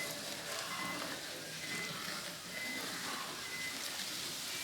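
Chicken curry simmering in a pot, a steady soft bubbling hiss that has not yet reached a full boil.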